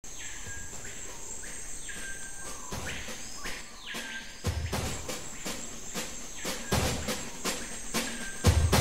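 Insect chirring, with steady high tones and a run of falling, swooping calls. Drum hits come in about a third of the way through and build into a beat with deep bass thumps.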